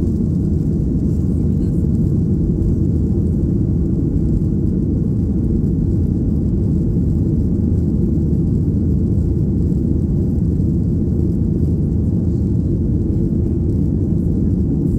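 Cabin noise inside a Boeing 737 climbing out just after takeoff: the jet engines at climb power and the rushing airflow make a loud, steady, low rumble that does not change.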